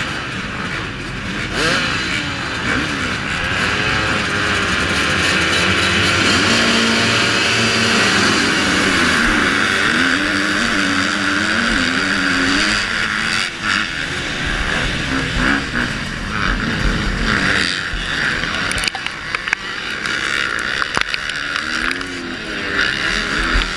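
Motocross bikes at a race start: engines held at revs with a warbling pitch behind the starting gate, then the pack pulls away together and the rider's own bike accelerates hard, about halfway through.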